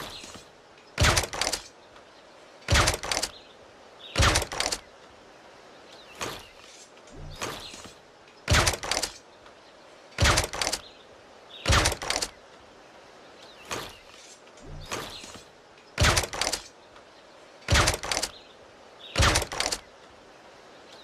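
Air rifle firing repeatedly: about nine sharp, short shots, each with a quick double crack, spaced irregularly one and a half to four seconds apart, with softer knocks between them.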